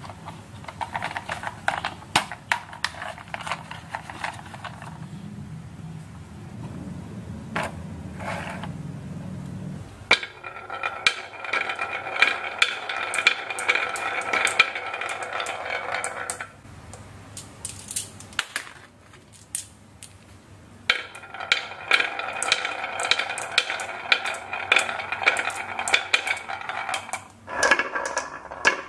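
Marbles rolling along the wavy grooves of a red wooden marble-run slope, clicking and clacking against the wood and each other as they pile up at the gate, in two long bouts with a lull between. Scattered clicks over a low hum come first.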